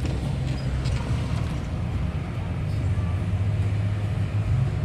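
Pickup truck engine idling, a steady low rumble heard from inside the cab.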